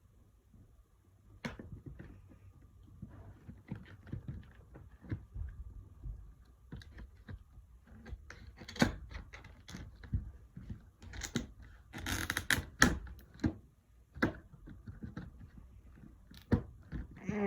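A tool cutting through the plastic packaging of a weather radio: irregular clicks and snips, with a longer crinkling of plastic about twelve seconds in.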